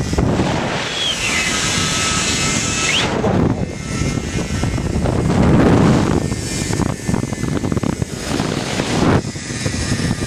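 Rush of wind on the microphone mixed with the whine of a zip-line trolley's pulleys running along the steel cable; the high whine dips and rises in pitch in the first few seconds.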